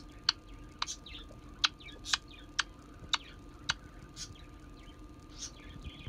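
Black-headed caique giving a run of short, sharp chirps about every half second, with faint little squeaks between them, as it plays on its back.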